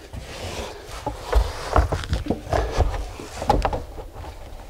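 Handling noise of speaker wire being pulled and laid out in a carpeted car trunk: rustles and scrapes with irregular light knocks, busiest in the middle.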